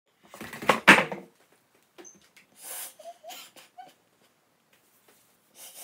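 A young woman crying: a loud sobbing outburst about a second in, then gasping breaths and short whimpers.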